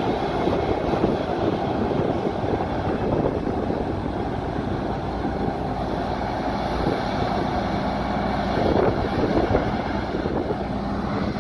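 Krone BiG X self-propelled forage harvester chopping maize, its diesel engine and chopping drum running steadily under load, mixed with the engine of the tractor pulling the silage trailer alongside.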